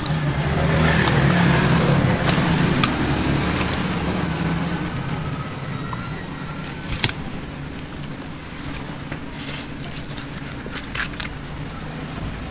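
Road traffic going past: a low rumble that swells over the first couple of seconds and then slowly fades. A few sharp clicks and knocks stand out over it, the clearest about seven seconds in.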